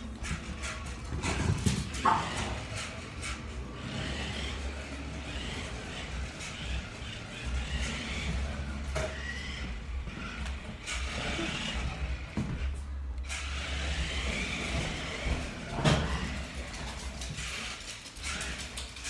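Toy RC car's small electric motor whirring as it drives across wood floor and rug, its pitch wavering as it speeds up and slows, with a couple of sharp knocks, about two seconds in and near the end.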